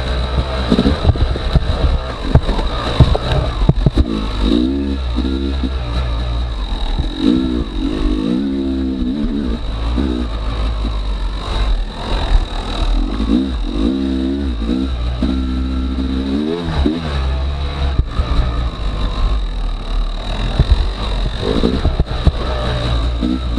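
Yamaha YZ250X two-stroke single-cylinder dirt bike engine revving up and falling back again and again as the throttle is worked on the trail, with scattered sharp knocks over the running engine.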